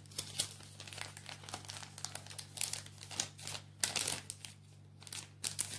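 Gift wrapping crinkling as it is handled by hand, in irregular quick rustles and crackles.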